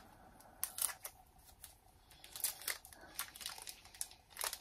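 Crinkling and light, irregular clicks of a Pokémon trading-card booster pack's foil wrapper and cards being handled, getting busier near the end.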